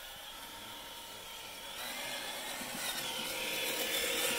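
Electric motor and gear whine of a radio-controlled scale crawler truck driving along a dirt trail, getting louder about halfway through as it passes close by.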